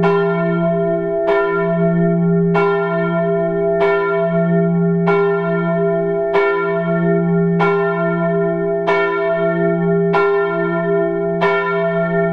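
A single church bell tolling steadily, one strike about every 1.3 seconds, each strike ringing on into the next.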